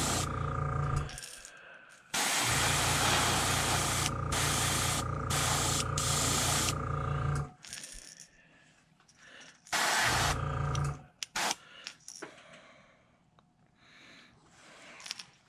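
Airbrush spraying paint onto a crankbait: a steady hiss of air with a low hum under it, in bursts. A short burst comes first, then a long one of about five seconds, then a brief one about ten seconds in, with small clicks in the pauses.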